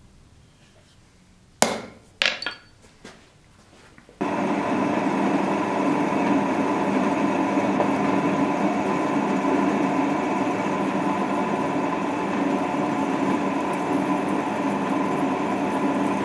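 Two sharp, ringing metal strikes of a hammer on a center punch set against a steel block on an anvil. Then, about four seconds in, a drill press starts running steadily, its bit drilling into the steel block.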